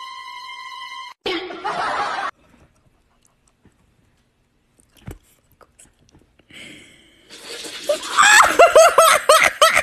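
A person laughing hard in quick repeated bursts, starting quietly about seven seconds in and becoming the loudest sound near the end. Before it comes a steady pitched tone that stops about a second in, a short noisy burst, and several seconds of near quiet.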